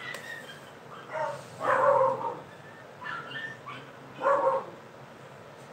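A dog barking a few times in short calls, over a low background hum.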